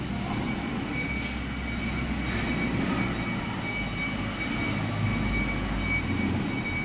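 Steady hum and rumble of metalworking machinery running in a machine shop, with a faint steady high-pitched whine above it.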